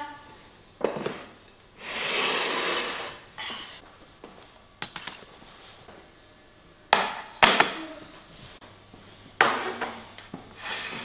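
Serving dishes, among them a heavy stone mortar, being set down and slid on a hard tabletop: a knock about a second in, a rubbing slide, then a few sharp knocks with a short ring near the end.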